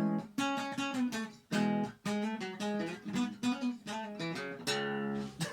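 Acoustic guitar strumming chords in a steady rhythm, with no singing, ending on a held chord near the end.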